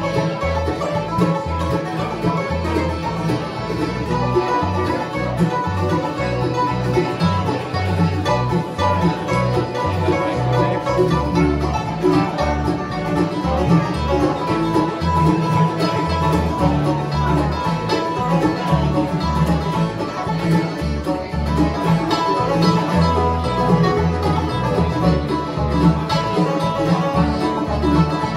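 Live bluegrass band playing an instrumental tune: banjo, mandolin, acoustic guitar and accordion together over steady plucked upright bass notes.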